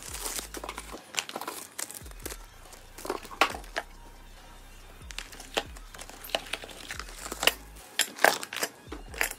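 Brown packing paper crumpling and a cardboard box being handled, with irregular sharp clicks and knocks; the sharpest come about three and a half and eight seconds in.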